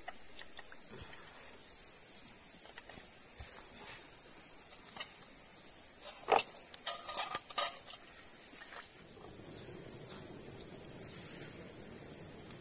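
Steady high-pitched insect chorus, with a short cluster of sharp knocks a little past the middle, the first one the loudest. A faint low rushing noise comes in about nine seconds in.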